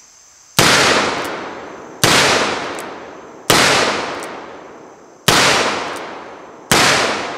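Five shots from a Colt Single Action Army revolver, fired one at a time about a second and a half apart, each sharp report fading away in a long echo.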